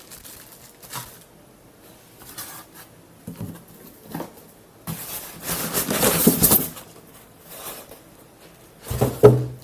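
Handling of ceiling-fan parts and packaging while unboxing: scattered light knocks and clicks, and about five seconds in a louder rustle of packaging lasting a second or two.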